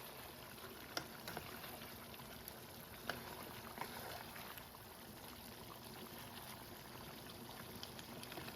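Chicken stew bubbling in a pot on high heat as its liquid reduces, a faint steady sizzle and bubble, with a few light clicks about one, three and four seconds in.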